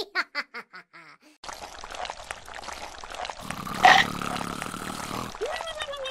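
Edited cartoon sound effects: a quick run of about seven short pitched blips, fading, then a watery sloshing hiss with one sharp hit about four seconds in, and a steadily falling tone near the end.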